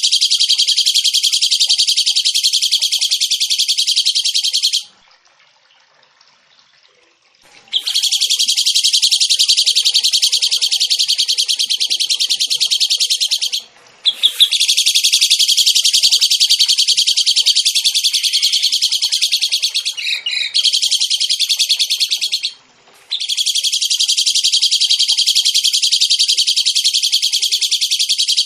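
A songbird singing long, very rapid, high trills. Each unbroken phrase lasts several seconds, with short pauses between them: four in all.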